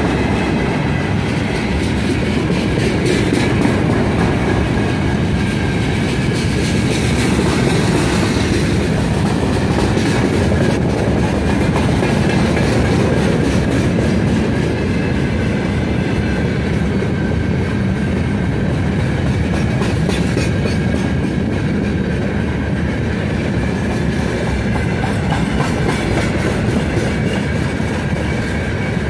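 Long freight train of open gondola wagons rolling past close by: a loud, steady rumble and clatter of steel wheels on the rails.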